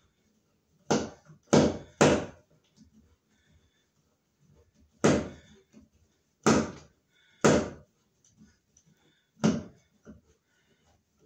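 A hand screwdriver worked in short twists on the stiff mounting screw of a plastic old-work electrical box set in drywall, giving seven sharp knocks at irregular intervals, with little else between them.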